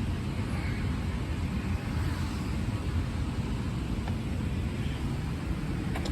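Subaru Sambar Dias Wagon on the move: a steady low rumble of engine and road noise, with a couple of faint ticks in the second half.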